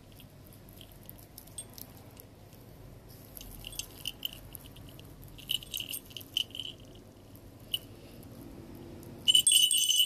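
A set of handmade Thai brass bells, one small cowbell and two round jingle bells, shaken by hand, jingling and clinking in irregular bursts over a faint steady background. The ringing is loudest in a burst near the end.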